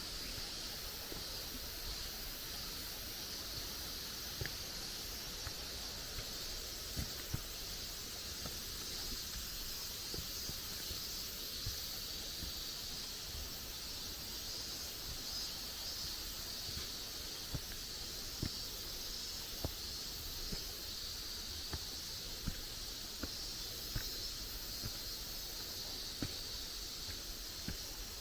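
Steady high-pitched drone of an insect chorus in the forest, with scattered soft footfalls on the trail.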